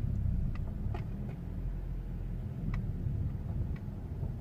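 2005 Volkswagen Golf petrol engine idling steadily, heard from inside the cabin, with a few faint clicks.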